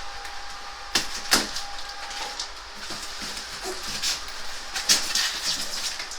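Parts and tools being handled during an air-conditioner installation: a few sharp knocks and clicks, about a second in and again near five seconds, over a rustling hiss.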